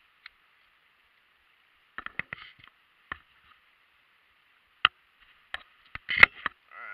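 Scattered sharp clicks and knocks of fishing tackle being handled while a hook is baited, with the loudest cluster about six seconds in.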